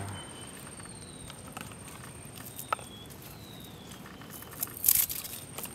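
Outdoor ambience with a steady high-pitched tone, several short falling whistles, a sharp click about halfway, and a louder brief noise shortly before the end.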